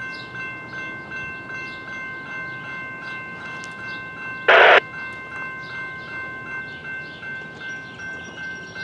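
Railroad grade-crossing bell ringing steadily, about three strikes a second, stopping near the end. A short loud burst of noise cuts in about halfway through.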